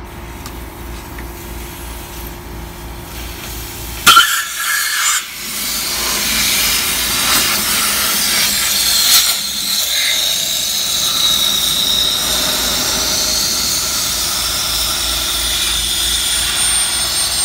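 Nitrogen let into the air conditioner's copper refrigerant line through a red charging hose: a sudden loud rush about four seconds in, then a steady hiss with a faint whistle as the gas flows through and out of the line.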